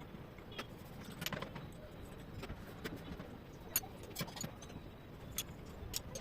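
Irregular light metallic clicks and clinks of hand tools and engine parts being handled, with one sharper click a little past the middle.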